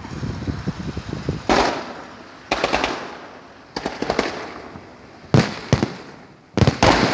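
Fireworks salute: a series of loud, sharp bangs from bursting shells at irregular spacing, some in close pairs, each fading out over about a second.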